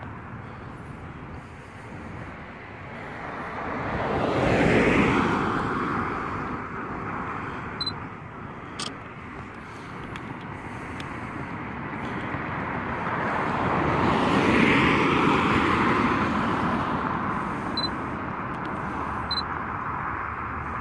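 Two road vehicles pass one after the other, their tyre and engine noise swelling and fading, loudest about five seconds in and again about fifteen seconds in.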